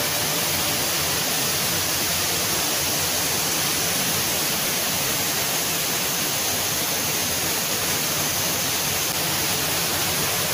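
Steady rush of flowing water, an even, unbroken hiss.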